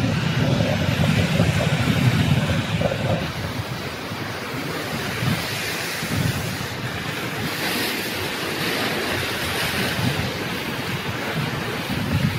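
Surf washing and breaking over shoreline rocks, with wind buffeting the microphone, the low rumble heaviest in the first few seconds. The hiss of the wash grows brighter after the middle.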